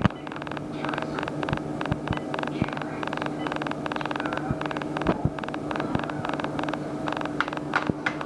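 Buttons being pressed over and over in quick, uneven clicks, about five a second, over a steady electrical hum.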